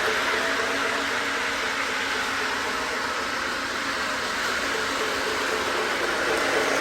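Model Mikado steam locomotive and its cars running fast around a toy train layout, turned up toward full speed: a steady whir of the motor and wheels on the track.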